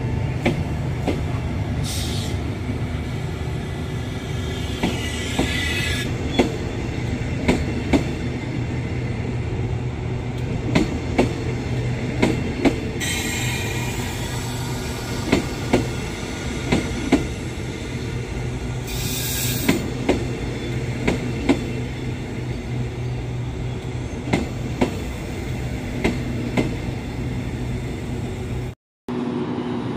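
Passenger coaches of a departing train rolling past, wheels clicking over rail joints and points, with four short bursts of high-pitched wheel squeal over a steady low hum.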